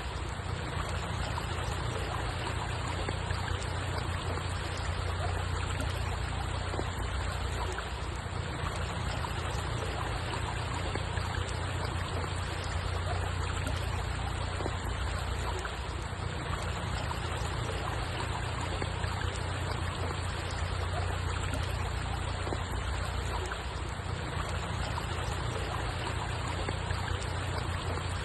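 Steady rush of flowing water, an even, unbroken noise with a strong low rumble underneath.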